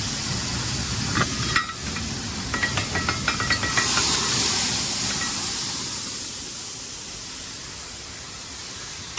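Shelled corn pouring out of a semi hopper trailer's partly opened gate into a grain pit, a steady hiss, with a run of clicks and rattles between about one and three and a half seconds in. The hiss gradually fades in the second half.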